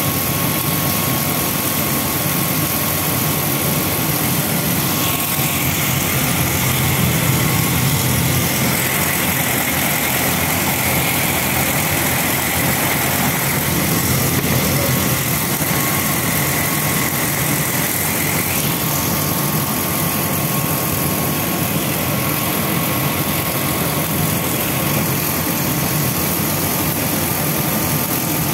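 Soya chunk making machinery running with a steady, even mechanical noise and a faint constant whine.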